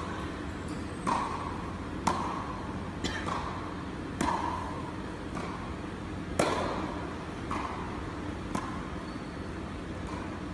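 Tennis balls struck by rackets in a rally: a sharp pock roughly once a second, about nine in all, the loudest about six seconds in.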